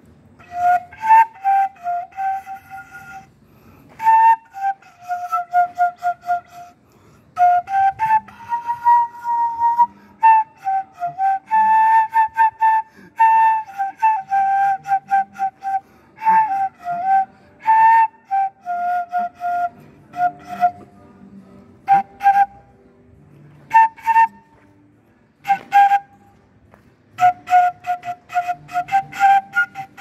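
Unaccompanied flute playing a slow melody: held notes that slide between pitches, in phrases with short pauses between them.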